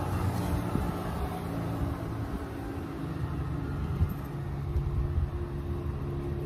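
A car engine idling with a steady low hum, with wind rumbling on the microphone.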